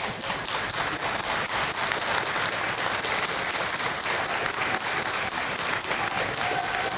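Crowd of rally-goers applauding steadily, dense clapping throughout.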